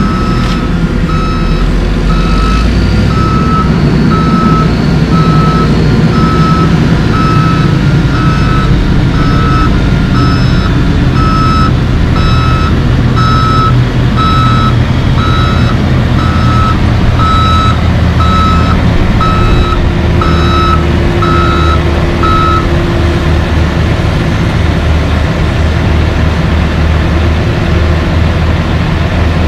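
Heavy construction machine's backup alarm beeping steadily over the low rumble of diesel engines, with the beeping stopping about 22 seconds in while the engines keep running.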